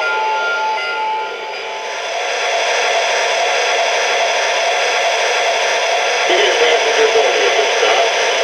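Model steam locomotive's sound-system whistle sounding in short blasts for the first second or so, then a steady rushing hiss as the Lionel PRR S2 turbine model runs with its smoke units puffing.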